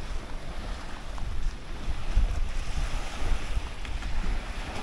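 Wind buffeting the microphone in a gusty low rumble, over a steady rushing hiss of wind that swells about halfway through.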